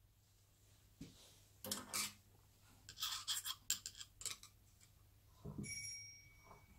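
A flat screwdriver clicking and scraping on the metal end housing of an air compressor's electric motor, in short faint bursts. Near the end a brief metallic ring follows.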